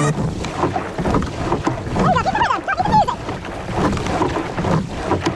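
Rowing shell under way: water rushing along the hull and wind buffeting the bow-mounted microphone, swelling and easing unevenly. About two seconds in, a few short voice-like calls rise and fall for about a second.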